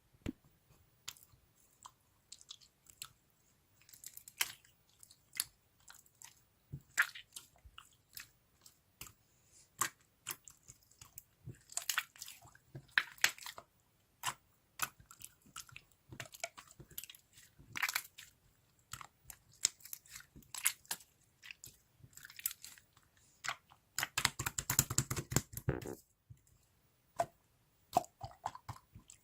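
Slime being kneaded and pressed by hand: irregular sticky clicks and pops of air squeezed out of it, with a dense run of rapid crackles lasting about two seconds near the end.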